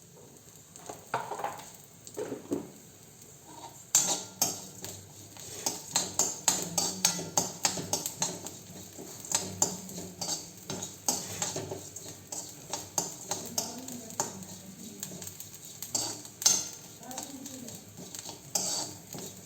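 A spoon scraping and clinking against an iron kadai as garlic, spices and curry leaves are stirred in a little hot oil, with a light sizzle. The rapid, irregular knocks and scrapes start about four seconds in and keep going.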